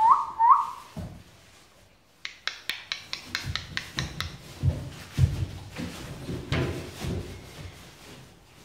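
Alabai puppies shuffling and scuffling on shredded-newspaper bedding in a glass pen, with irregular low thumps of paws and bodies. Just before, about two seconds in, comes a quick run of about ten sharp taps. The last of a person's short rising whistles sounds at the very start.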